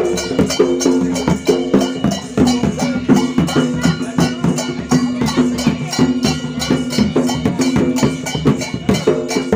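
Folk percussion: a large barrel drum beaten with a stick together with sharp, bright strikes in a fast, even rhythm, over repeated ringing tones.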